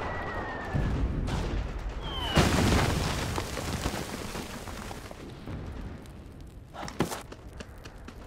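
Battle sound effects: a brief high falling whistle, then a loud explosion with a long low rumble about two seconds in, and scattered gunshots, with one sharp shot about seven seconds in.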